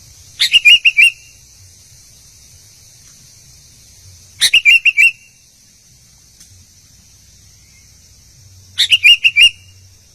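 Albino sooty-headed bulbul (kutilang) singing three short phrases about four seconds apart, each a quick run of four or five bright whistled notes, over a steady high hiss.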